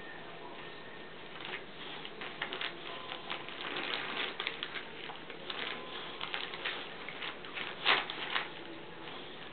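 Wrapping paper crinkling and tearing in irregular rustles as a Boxer dog chews and pulls it off a present, starting a second or two in, with the loudest crackle near the end.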